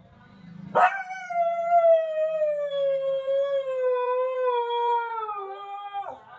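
A husky howls once, a single long howl of about five seconds starting about a second in. It sweeps up at the start, slides slowly down in pitch, then drops off at the end.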